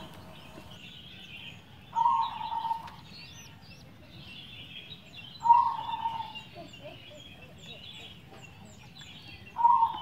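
Zebra dove (perkutut) cooing: three calls about three and a half seconds apart, each lasting about a second, over faint high twittering of small birds.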